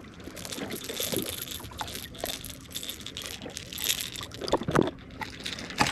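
Close rustling, crinkling and clicking of hands working a hook out of a small channel catfish's mouth without pliers, with a few sharper knocks about four and a half seconds in and again near the end.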